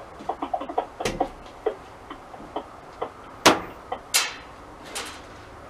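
Screw caps being popped off the roof-hatch trim with a hand tool: a run of light clicks and ticks, with sharper snaps about a second, three and a half and four seconds in.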